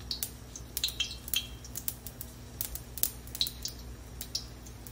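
Oil crackling with small irregular pops around a battered potato-and-pork patty shallow-frying in a wok over medium heat, with a steady low hum underneath.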